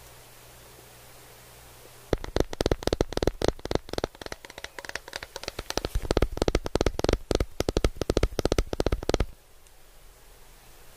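Close-miked crunching and chewing of crispy tacos, in dense, irregular crunches. They start about two seconds in and stop abruptly about two seconds before the end.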